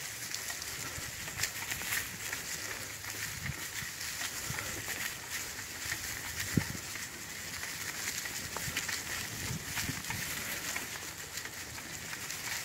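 Bicycle tyres rolling over dry fallen leaves on a dirt trail: a steady crackling rustle full of small clicks, with one sharper click about six and a half seconds in.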